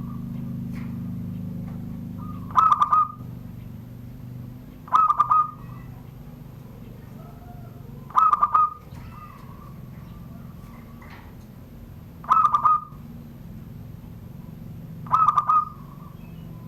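Zebra dove (perkutut) singing its cooing song five times, each phrase a short, rapid run of notes about three seconds apart. This is the classic 'surung gdor' song style of Banten perkutut.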